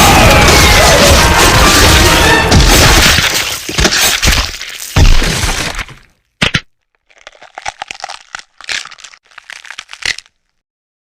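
A loud cracking, breaking crash that dies away over about six seconds. A single sharp crack follows, then scattered faint crackles that stop about ten seconds in.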